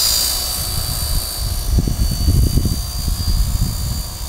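Radio-controlled Tiger Moth model biplane's motor and propeller, a steady high-pitched whine that dips slightly in pitch and fades as the plane flies away, with an irregular low rumble midway.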